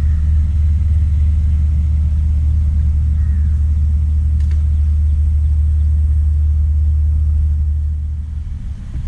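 A steady low rumble that eases off about eight seconds in, with a faint tick about four and a half seconds in.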